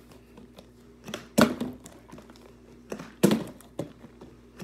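Plastic drink bottle flipped and landing on a wooden floor: two loud thuds about two seconds apart, each with a softer knock just before.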